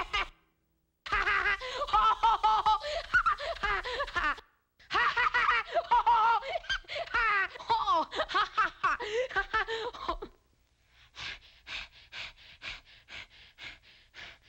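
A cartoon boy's high-pitched, rapid 'heheheh' laugh in two long runs, broken by a short pause about a second in and again near four and a half seconds. After about ten seconds it turns into a fainter, thinner string of laughs.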